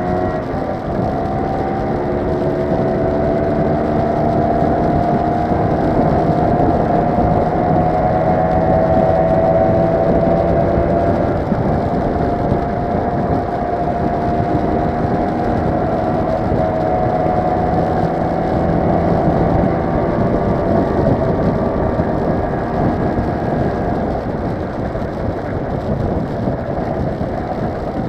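Motor scooter engine running at cruising speed, its pitch drifting slightly up and down, over a steady rush of wind and road noise.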